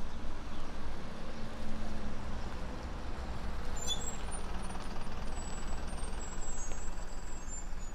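Road traffic: vehicle engines running and passing with a steady low rumble, faint high squeaks in the second half.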